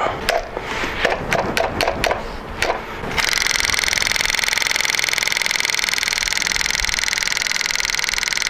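A few sharp knocks and clicks, then about three seconds in a motorcycle's aftermarket electric fuel pump starts a steady, fast buzzing tick and keeps running. It does not shut off as it should once the line is pressurised, a sign of the failing cheap pump, whose pressure sensor the owner suspects is dead.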